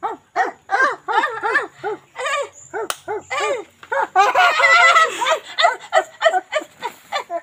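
Wordless human vocal calls in the play-acted primitive style of 'heim, heim': a fast run of short, high yelping calls, about three a second, crowding together into a busier stretch just past the middle.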